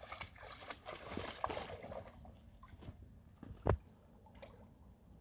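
Shallow lake water sloshing and splashing around a wading American Staffordshire Terrier's legs, busy at first and dying down after about two seconds, with one louder thump a little later.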